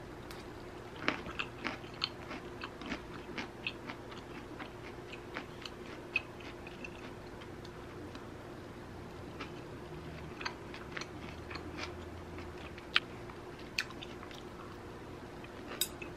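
Close-miked chewing and crunching of a mouthful of spicy squid salad with broccoli and onion, the crisp crunches coming thick in the first few seconds, then scattered again later, with a couple of sharper clicks near the end. A faint steady hum lies underneath.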